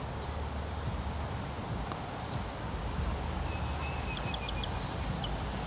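Outdoor park ambience: a steady low rumble, with a few faint, high bird chips and a thin whistle in the second half.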